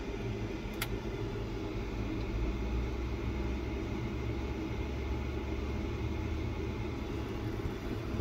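Elegoo resin 3D printer running: a steady low mechanical hum as the Z-axis motor moves the build plate down into the resin vat, with a single sharp click about a second in. The deepest part of the hum eases near the end as the bed stops.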